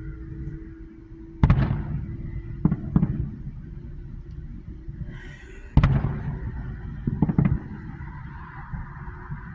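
Fireworks bursting in the sky: about six bangs with short rumbling tails, the two loudest about a second and a half in and near the middle, with quicker pairs of smaller bangs after each. A steady low hum runs underneath.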